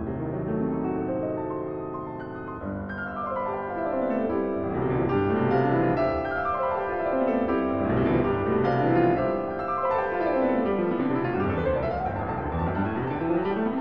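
Background piano music, with rapid runs of notes sweeping down and back up several times.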